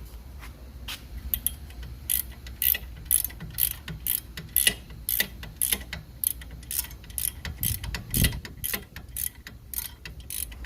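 An 18mm ratchet wrench clicking in short strokes, about two to three a second, as an already-loosened lower control arm bolt is backed out, with a dull knock about eight seconds in.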